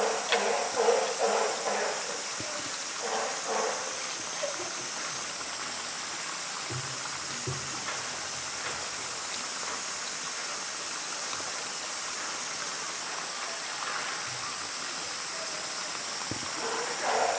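Steady rushing background hiss, with brief snatches of voices in the first few seconds and again at the very end.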